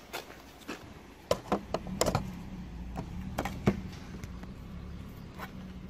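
Sharp plastic clicks and knocks, a few in quick succession, as a Mennekes Type 2 charging plug is worked into the socket of an EV charging post and its hinged socket flap knocks against it. A low steady hum runs underneath.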